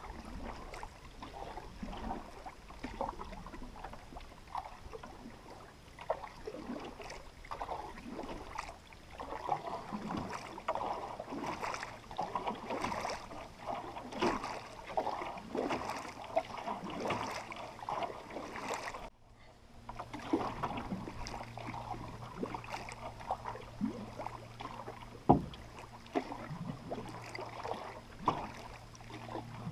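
Water lapping and gurgling along the hull of a paddled canoe as it moves through calm water, in small irregular splashes. A steady low hum runs through the second half, and there is one sharp knock near the end.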